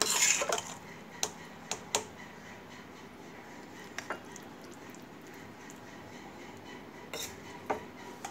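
A steel spoon scraping food out of a stainless steel kadai for about half a second, then scattered clinks and taps of the spoon against the pan and a glass serving dish.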